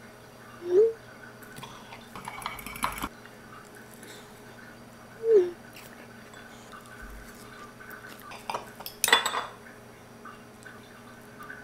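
Fork and knife clinking and scraping against a plate while eating, with a burst of scraping about two seconds in and a loud clatter about nine seconds in. Two short squeaks, one about a second in and one about five seconds in.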